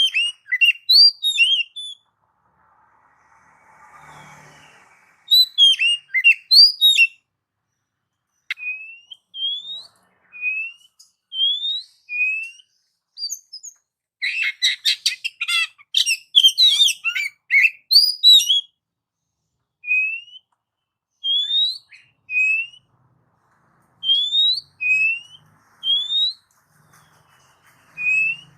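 Oriental magpie-robin (kacer) singing: a series of clear, rising whistled notes in short phrases, with a fast chattering passage about halfway through and silent pauses between the phrases.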